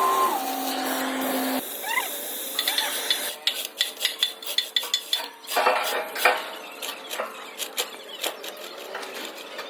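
Metal parts clinking, scraping and clattering, many short sharp clicks, after a steady machine tone that drops in pitch and stops early on.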